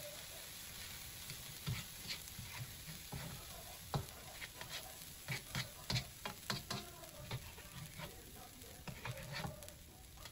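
A cooking spoon scraping and tapping against a wok and a plate in irregular clicks and knocks as stir-fried squash and bok choy are scooped out, over a faint sizzle of the leftover oil in the hot wok.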